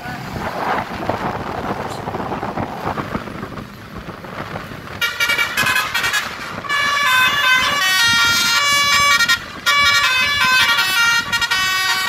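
Road traffic noise, then about five seconds in a tour bus's multi-tone Basuri telolet horn plays a melody of stepped notes, breaking off briefly partway through and stopping near the end.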